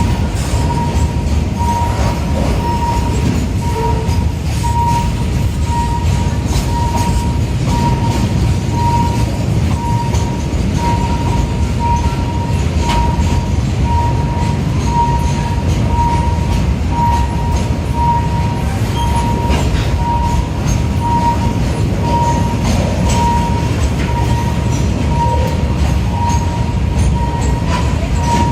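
Thai State Railway passenger train passing a level crossing, with a steady heavy rumble and scattered clicks and rattles from the cars. Over it the crossing's warning signal beeps steadily, about three beeps every two seconds.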